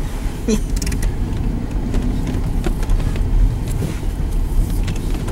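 Chevrolet Tahoe in four-wheel drive pushing through snow, heard from inside the cab: a steady low engine and road rumble with a few light knocks.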